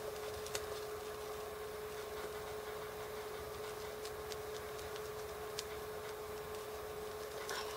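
Quiet room tone: a steady hum and faint hiss, with a few isolated light ticks scattered through it and a brief rustle near the end.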